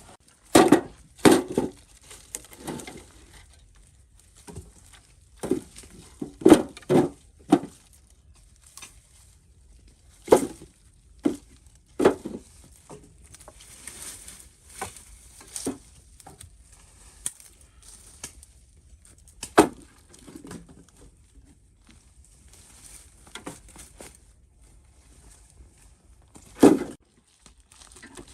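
Irregular sharp knocks and thuds, about fifteen of them at uneven intervals, with quiet stretches in between; the loudest come near the start and near the end.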